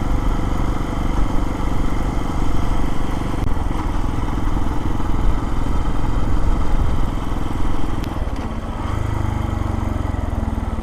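Lifan KPX250's single-cylinder four-stroke engine running on the move. About eight seconds in the engine note drops and settles into a steadier, quieter tone.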